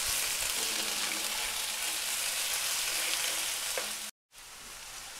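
Chicken breast pieces sizzling as they fry in hot oil in a Petromax FP40 cast-iron pan. The sound briefly cuts out about four seconds in, then comes back a little quieter.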